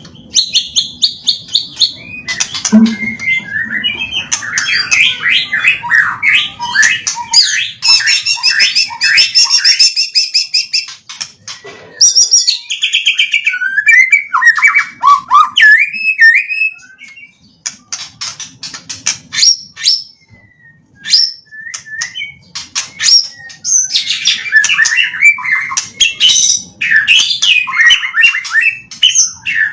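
White-rumped shama (murai batu) singing a long, varied song of gliding whistles, rapid trills and sharp chips, its repertoire filled with phrases copied from master birds. The song eases off briefly past the middle, then returns at full strength.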